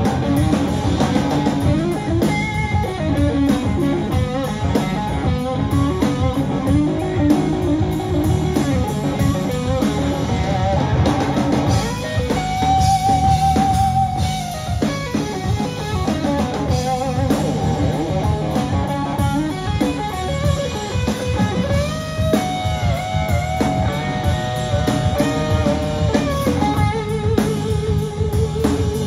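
Live blues-rock band: an electric guitar plays a lead line of bent notes, some held with vibrato, over bass guitar and drum kit.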